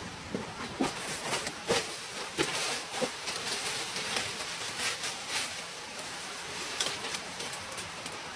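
Irregular sharp knocks and cracks, many through the first half and a couple more later, over a steady hiss.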